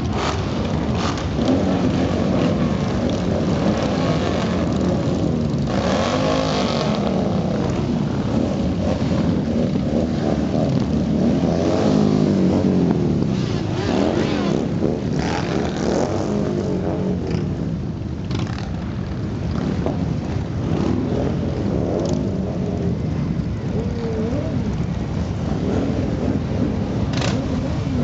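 A long stream of motorcycles riding past, one after another. Their engine notes swell and fall away as each bike goes by.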